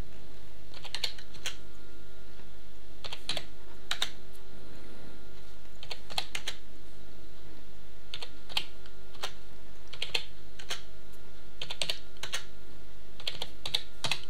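Typing on a computer keyboard in short clusters of a few keystrokes every second or two, entering numeric values one at a time. A steady electrical hum runs underneath.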